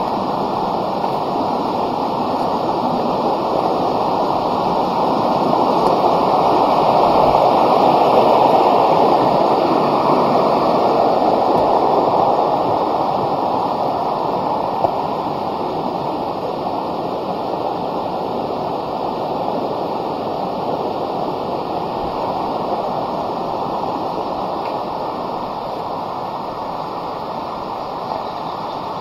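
Mountain stream rushing over rocks in a steady, full roar of water that swells louder for a few seconds in the middle and then eases off.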